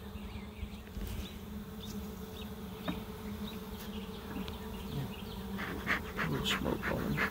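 A hived swarm of honey bees humming in an opened hive box: a steady low drone that holds its pitch. A run of short scratchy sounds comes in near the end.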